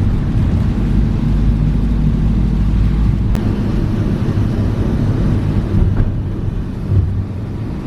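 Motor vehicle on the move: a steady, loud, low engine and road rumble that starts abruptly.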